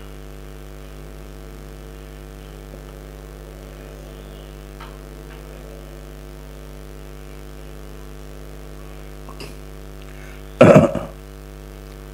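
Steady electrical mains hum, with one short, loud burst from a person's throat, like a cough, about ten and a half seconds in.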